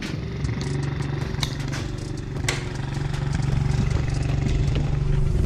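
Pit bike's single-cylinder engine idling steadily while it warms up, with a couple of sharp clicks about one and a half and two and a half seconds in.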